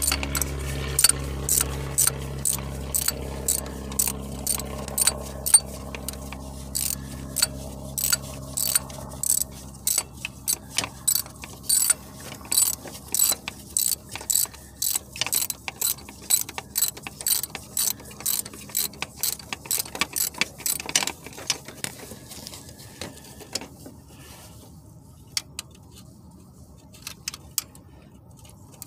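Hand ratchet wrench clicking in quick runs of several clicks a second as a bolt is turned during a starter replacement, the clicks thinning to almost nothing near the end.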